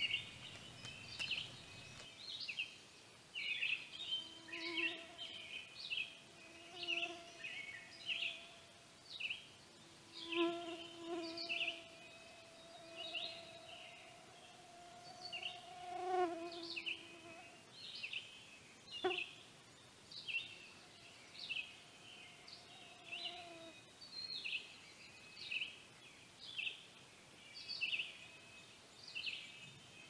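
Outdoor chorus of short, high chirping calls repeating about once or twice a second, with a fainter low drawn-out note coming and going beneath it and a single sharp click about two-thirds of the way through.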